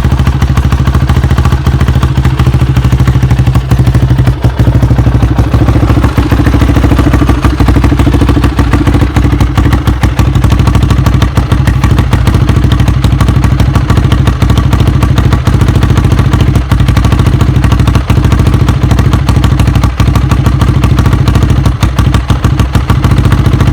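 Honda XR250R's single-cylinder four-stroke engine idling steadily after being brought back to running, with a few brief sharp knocks.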